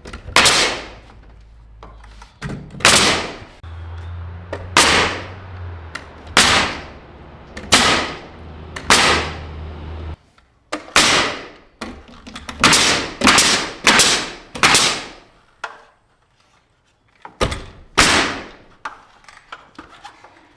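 Nails being driven into a wooden wall frame: about a dozen sharp strikes, mostly one to two seconds apart, with a quicker run of four a little past halfway.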